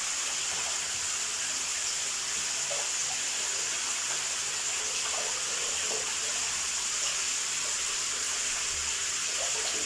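Water running steadily in a bathroom, a constant even hiss.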